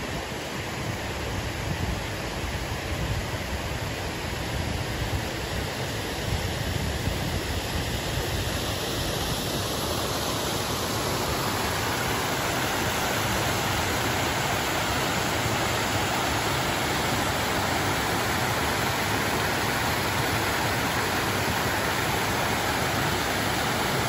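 Mountain stream cascading over rocks in a small waterfall: a steady rush of water that grows louder about halfway through, then holds.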